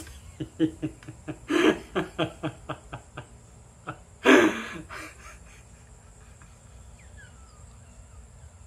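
A man chuckling in a quick run of short laughs, about four a second, then a single loud falling exclamation about four seconds in.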